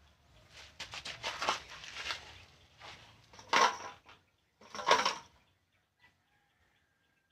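A cloth rag scrunching as a paintbrush is wiped in it, then two short puffs of breath blown at the wet paint, about a second and a half apart.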